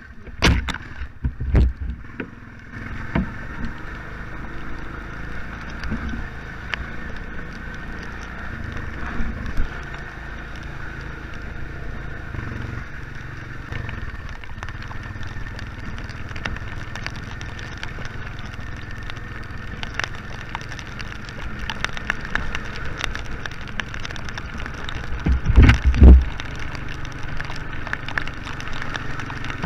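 Honda Fourtrax ATV running along a muddy trail, a steady engine and ride noise. A few heavy thumps come in the first couple of seconds, and the loudest knocks come near the end.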